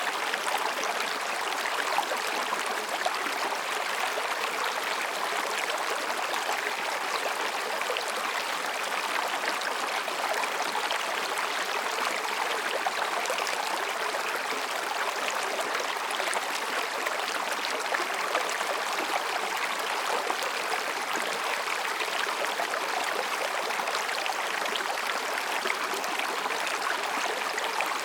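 Mountain stream babbling steadily over and between rocks, an even rush of water with small splashes and gurgles scattered through it.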